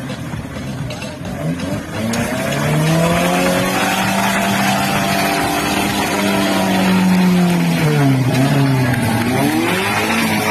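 An SUV engine revving hard under load while towing a stuck SUV out of mud on a strap. It climbs in pitch over the first few seconds, holds high and steady, then drops and climbs again near the end.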